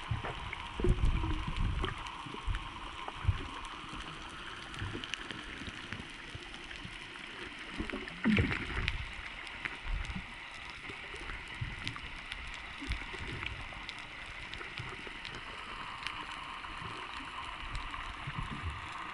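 Muffled underwater water noise picked up by a submerged camera: a steady hiss and gurgling, broken by irregular low thumps and bubbling from swimmers moving and kicking beside the boat's outrigger pole, the loudest about a second in and about eight seconds in.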